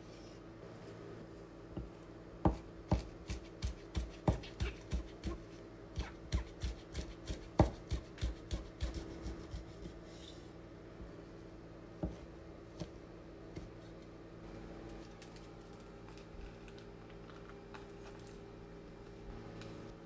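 Kitchen knife chopping on a cutting board, a quick run of regular chops about three a second, followed by a few scattered taps.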